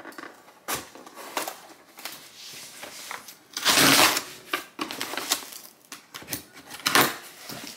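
A package being opened by hand: irregular rustling and tearing of its packaging, with a few sharp clicks and one louder half-second rip about halfway through.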